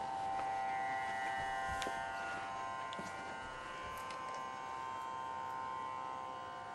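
A steady buzzing musical drone of several held tones, with a few soft knocks and clicks over it.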